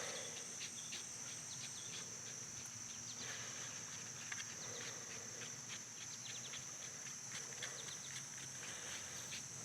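Crickets chirping steadily in a high, even band, with faint small ticks and scrapes scattered over it.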